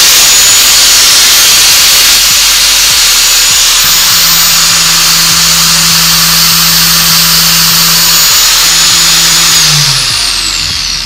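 Angle grinder running flat out with a fidget spinner mounted on its spindle instead of a disc: a loud, steady high-pitched whine. About ten seconds in it is switched off and winds down, its pitch falling.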